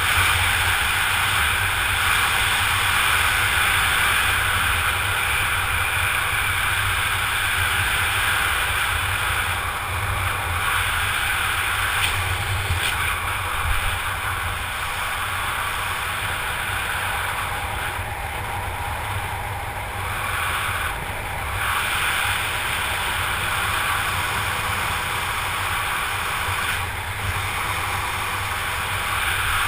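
Steady rush of wind buffeting the microphone of a camera worn by a skydiver flying under an open parachute canopy, a little quieter for a few seconds past the middle.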